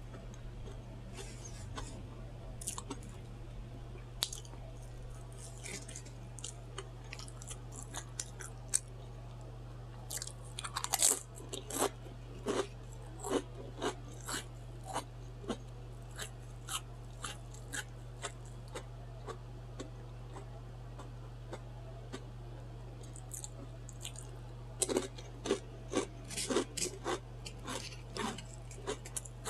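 Chewing, lip-smacking and crunching on a Subway chicken and bacon sandwich, in irregular short smacks. The louder bites and crunches come in clusters about ten to fourteen seconds in and again from about twenty-five seconds in.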